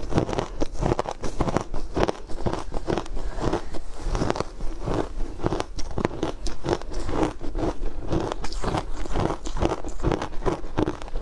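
Close-miked chewing of crushed ice dusted with matcha powder: a steady run of rapid, crisp crunches as mouthful after mouthful is bitten.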